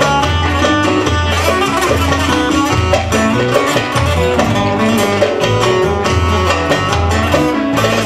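Amplified bağlama (long-necked Turkish saz) playing a fast instrumental passage: a quick run of plucked notes over a low, pulsing bass.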